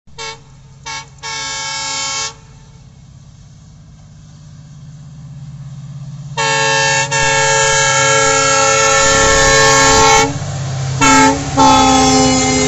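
WDP4D diesel-electric locomotive sounding its multi-tone horn: two short toots and a longer blast in the first couple of seconds. Then, as its engine rumble grows louder on the approach, a long blast, a short toot and another long blast near the end.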